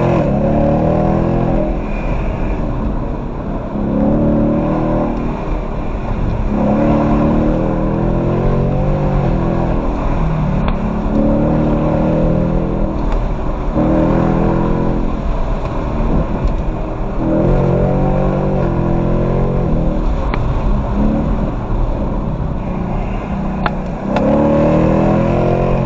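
Ford Mustang GT's V8 engine accelerating hard through the gears: the revs climb for two to three seconds, drop at each shift and climb again, over and over.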